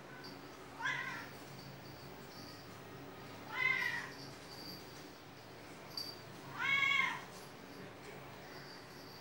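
Long-haired cat meowing three times, a few seconds apart, each call rising then falling in pitch. The calls are played back through a phone's speaker.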